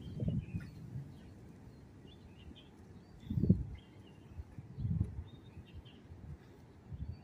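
Small birds chirping on and off in trees, with a few short low rumbling bumps on the microphone, the strongest about halfway through.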